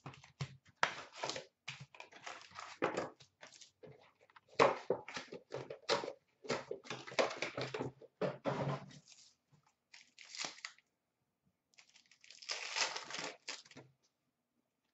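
Foil hockey card packs being handled and torn open, the wrappers crinkling and rustling in irregular bursts, with a quiet gap of a couple of seconds before a last stretch of rustling near the end.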